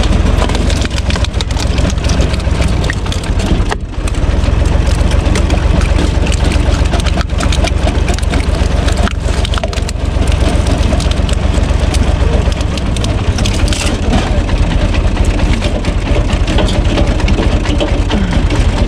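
Tractor-driven screw cone log splitter: the spinning threaded cone bores into a log, crushing and cracking the wood until it splits apart, over the steady running of the UTB Universal 445 DT tractor's diesel engine under load. The sound eases briefly about four seconds in.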